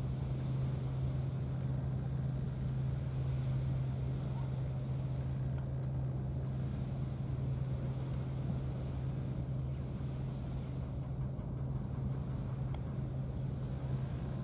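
A steady, unchanging low mechanical hum, like a motor or engine running.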